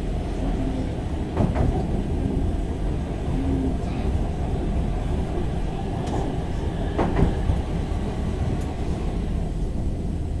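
Stockholm Metro C20 train running, heard from inside the car: a steady rumble of wheels on rail with a few sharp knocks, about 1.5, 4 and 7 seconds in.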